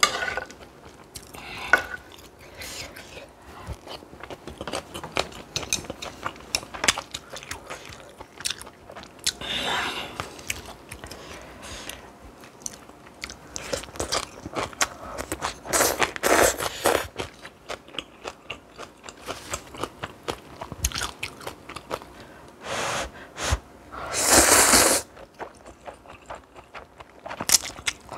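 Close-miked mukbang eating of spicy stir-fried noodles and kimchi: repeated bites, crunching and wet chewing. Two louder rushing bursts come a little past halfway and near the end.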